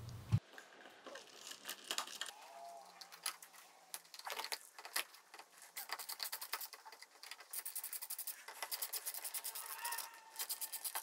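Hand screwdriver working on a ceiling electrical box: small scrapes, taps and clicks of metal screws, screwdriver tip and plastic cover plate as a 240-volt outlet is screwed in place, with a quicker run of scratchy clicks in the second half.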